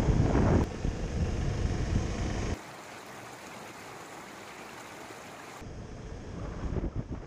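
Motorcycle running along the road with wind rushing over the microphone; about two and a half seconds in it cuts to a quieter, steady sound of a flowing creek, and after about three seconds the motorcycle and wind noise come back.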